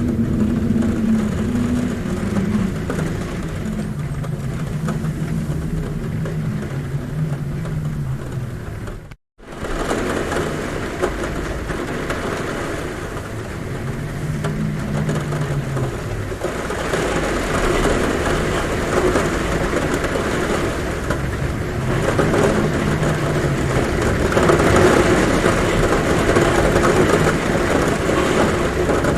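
Heavy rain pattering steadily on a roof, with a low wind moan that slowly rises and falls at the window. The sound cuts out for a split second about nine seconds in, then resumes.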